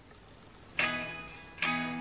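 Guitar chords strummed: one chord comes in about a second in and rings out, and a second chord follows just before the end and keeps ringing.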